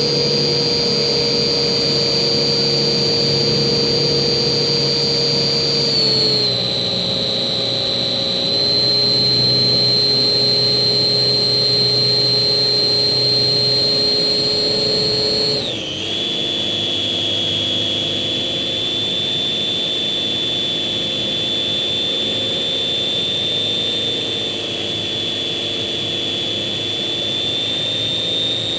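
Electric motor and propeller of a Slow Stick RC plane running in flight with a steady high whine. The pitch steps down twice, about six seconds in and again near the middle, as the throttle is eased back.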